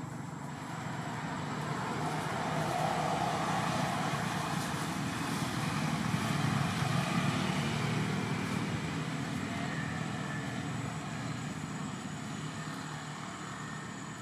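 Steady noise of a passing motor vehicle. It swells over the first few seconds and slowly fades toward the end.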